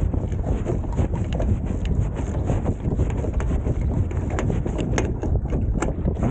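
Wind rumbling and buffeting on the microphone aboard a sailing catamaran under way, with scattered sharp clicks and ticks through it.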